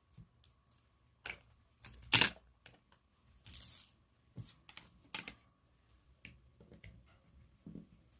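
Packaging being handled while a present is unboxed: scattered clicks and taps, a sharp knock about two seconds in, and a brief rustle or tear of paper or plastic about a second later.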